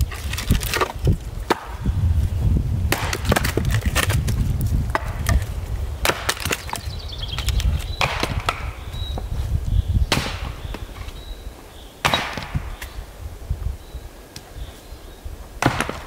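Split firewood and logs knocking and clattering together as they are handled at a woodpile, with sharp wooden knocks every second or two and a dull rumble under the first half.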